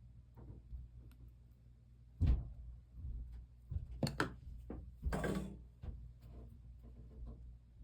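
Irregular knocks and clunks of objects being handled and set down on a work table. The loudest comes about two seconds in, and a quick cluster follows around four to five and a half seconds.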